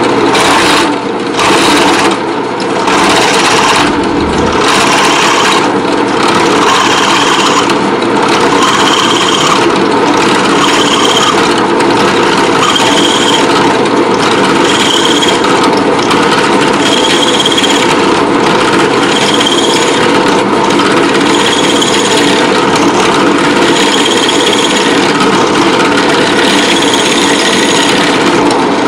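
Drill press running, its twist bit cutting out the aluminum tube inside a tobacco pipe stummel, with a couple of brief breaks early on. From about seven seconds in, a high squeal from the cut comes back about every two seconds.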